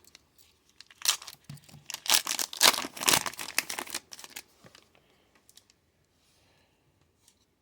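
Thin plastic card wrapper being torn open and crinkled, a cluster of rustling, tearing strokes for about three seconds, then only faint handling.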